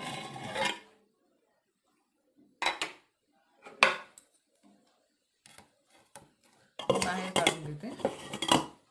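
Pressure cooker being opened: metal scraping and clatter as the lid is twisted free and lifted off, then two sharp clanks a second apart as it is set down. Near the end comes a longer spell of metal-on-metal clattering and scraping as the steel container inside is gripped with pincer tongs and lifted out.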